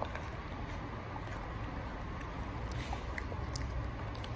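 Quiet room tone: a steady low hum, with a few faint clicks about three seconds in.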